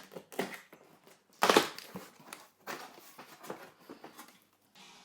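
Cardboard shipping box being opened with a box cutter: irregular scraping and rustling of blade and cardboard, loudest about a second and a half in.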